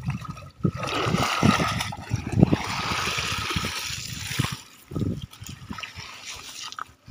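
Water splashing and streaming off a wet cast net as it is gathered up and lifted out of shallow muddy water, with a few knocks among the splashes. It goes much quieter about four and a half seconds in, leaving only a few soft knocks.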